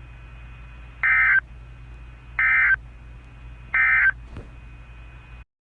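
Emergency Alert System end-of-message code: three short bursts of warbling digital data tones, about a second and a half apart. They sound over faint radio hiss and hum, and all sound cuts off abruptly near the end.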